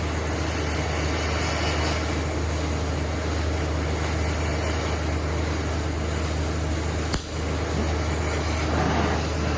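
Steady machine noise with a low hum, with one sharp click about seven seconds in.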